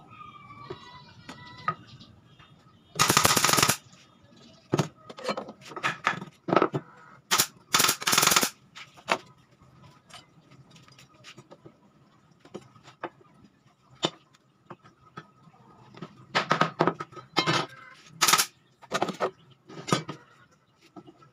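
Pneumatic nail gun firing nails into a wooden frame: sharp cracking shots, some in quick runs, in two clusters, a few seconds in and again later, with a longer burst of noise just before the first cluster.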